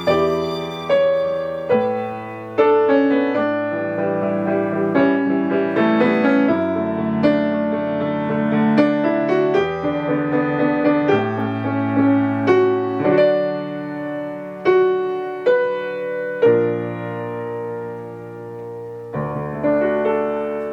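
Piano playing alone: a slow run of melody notes over chords, each note struck and then ringing away, the phrases spacing out and growing softer near the end.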